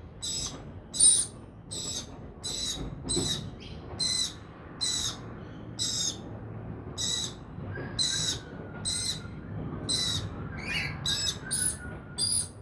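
Lorikeets calling: a steady run of short, sharp, high-pitched calls, about two a second.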